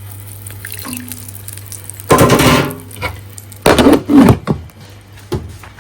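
Kitchen handling noise: two loud clattering, scraping bursts about two and four seconds in and a short knock near the end, over a steady low hum.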